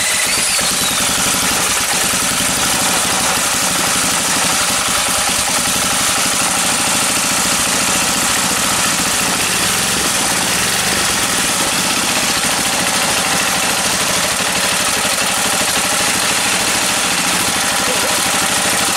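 Small single-cylinder stationary engine running steadily at an even speed just after starting. A short whine from the electric drill used to spin it over rises and fades in the first second. The engine starts poorly because, as the owner says, its timing is slightly out.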